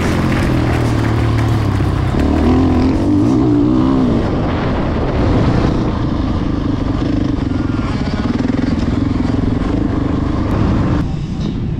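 2022 Husqvarna FE450's single-cylinder four-stroke engine under way on a dirt track, revving up and down through the throttle in the first few seconds, then pulling more steadily.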